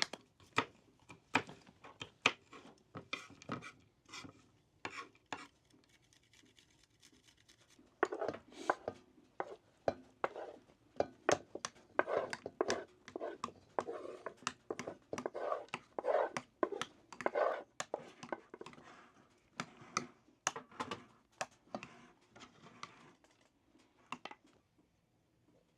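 Garlic being grated on a hand grater: quick rasping strokes with clicks of kitchen utensils. The first few seconds hold only scattered clicks, then a dense run of scraping strokes sets in, thins out and stops shortly before the end.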